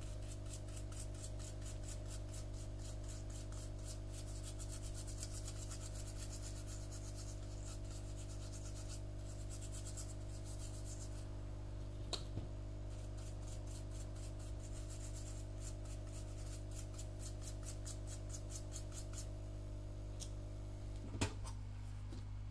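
Rapid, rhythmic scraping strokes, a few a second, over a steady electrical hum, with a pause around the middle. Two sharp clicks, one near the middle and a louder one near the end.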